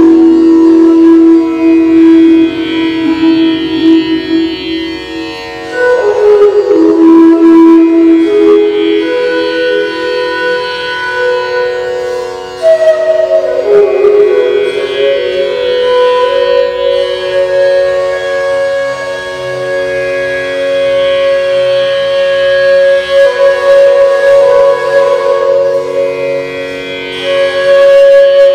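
Bansuri, the Indian bamboo flute, playing a slow improvised melody of long held notes with slides between them. The notes ring on and overlap in the reverberation of an empty stone water tank.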